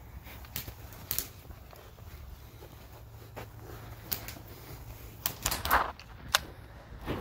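Scattered sharp clicks and snaps of an airsoft skirmish, airsoft guns firing single shots, about a dozen in all, irregularly spaced. The loudest come near the end.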